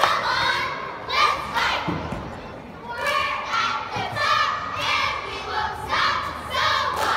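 Young cheerleaders shouting a cheer together in rhythmic, chanted phrases, with a few thumps in between.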